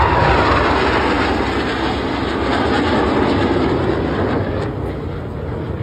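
Loud, rushing jet noise from Boeing F/A-18 Super Hornet fighters making a low pass, easing a little near the end.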